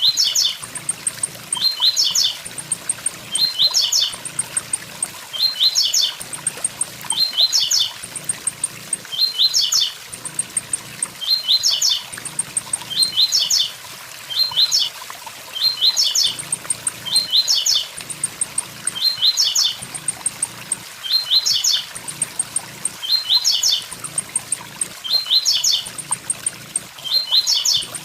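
Blue-black grassquit (tiziu) singing its short 'tui-tui-zel' phrase over and over, about once a second, over the steady rush of a waterfall.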